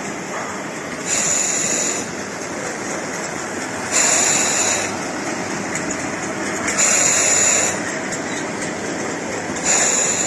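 Rotary ultrasonic vial and ampoule washing machine running: a steady mechanical noise with a short, loud hiss of spray or air jets about every three seconds, four times.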